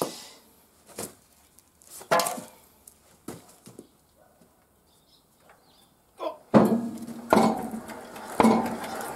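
Yanmar SS11C single-cylinder diesel engine on a walk-behind tractor being hand-cranked: a few metal clanks and knocks as the crank is worked, then from about six and a half seconds the engine turns over with a rhythmic pulse about twice a second without catching.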